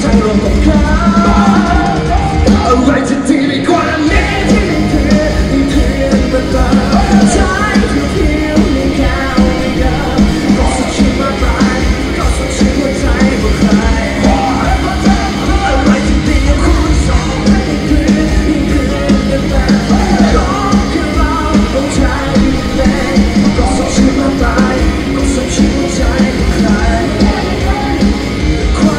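Live pop-rock band playing loud over the PA, with male and female voices singing into microphones. The bass drops out briefly around three seconds in, then the full band comes back.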